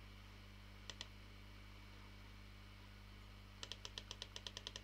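Computer mouse clicks over a faint steady hum: a double click about a second in, then from about three and a half seconds an even run of small clicks, about eight a second, like a scroll wheel turning.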